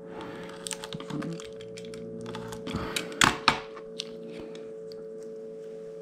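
Utility knife cutting and working open the end of a plastic 3M resin-seal splice pouch: scattered small clicks and crinkles, with two sharper clicks a little past three seconds in. A faint steady hum runs underneath.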